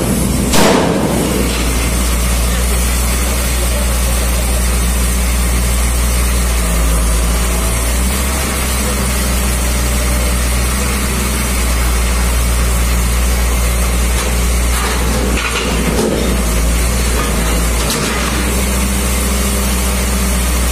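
Truck engine running steadily while powering a truck-mounted scrap-loading crane with an orange-peel grapple, with a few brief louder noises near the start and around 15 to 18 seconds in.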